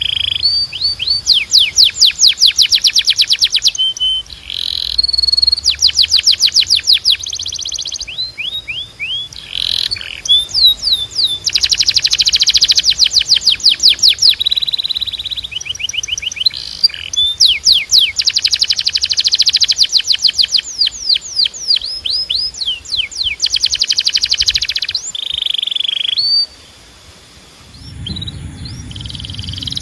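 Domestic canary singing a long song of fast, rolling trills, each run made of rapidly repeated high notes and switching every second or two to a new pitch and speed, with a short break near the end.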